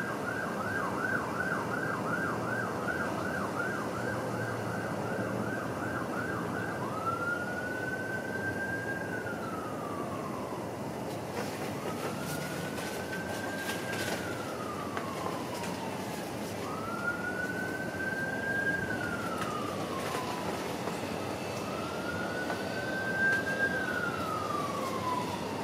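Emergency vehicle siren on the fast yelp setting, switching about seven seconds in to a slow wail that rises and falls four times, over steady background noise.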